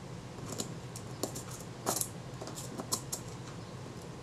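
Small, sharp clicks and light scrapes of a metal probe working the levers and springs of a Synchro-Compur leaf-shutter mechanism. The clicks come irregularly, about half a dozen, and the strongest is about two seconds in.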